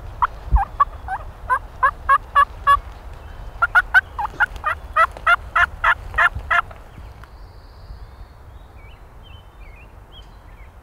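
Turkey yelping: a long series of evenly spaced yelps, about three a second, growing louder after a short break and stopping about six and a half seconds in. Faint small-bird chirps follow.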